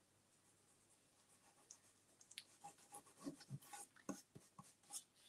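Faint, irregular scratching and rubbing as a gloved hand and brush work gel stain into the rough, rust-effect surface of an old metal file cabinet. Almost nothing for the first two seconds, then a quick run of scratchy strokes and light clicks.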